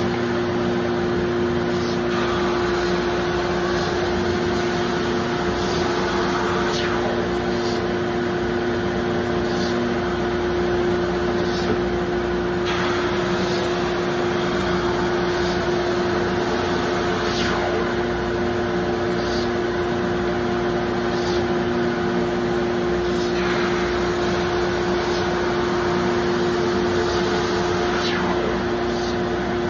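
Shop Fox wide belt sander running steadily, a constant hum over an even rushing noise, as cutting-board blanks of hardwood are fed through it to be sanded flat. A brief faint swish comes every five seconds or so.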